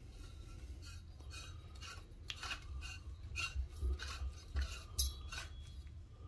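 Two metal tube bars being screwed together by hand at a threaded joint: a series of short, faint scrapes and rubs as the shallow metal threads turn and the hand grips and twists the tube, most of them in the second half.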